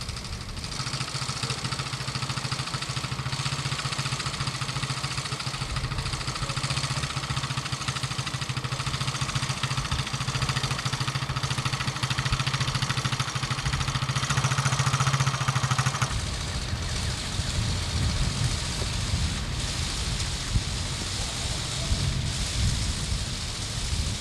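A steady motor hum over a constant hiss, the hum cutting off abruptly about sixteen seconds in while the hiss carries on.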